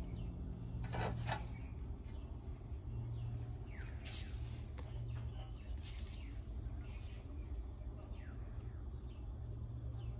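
A bird calling repeatedly with short falling chirps, about one a second, over a low steady hum. Two sharp clicks come about a second in.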